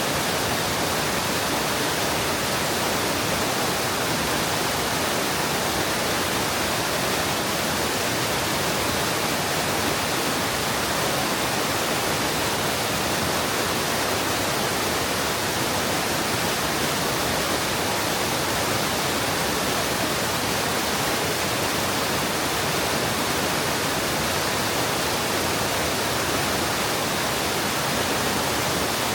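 Mountain stream water rushing and cascading over rock into a pool, a steady, unbroken rush.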